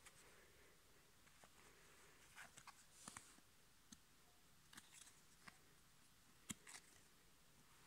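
Faint handling of cardboard football trading cards: a scatter of soft clicks and rustles as a card is picked up and turned over, the sharpest click a little past the middle.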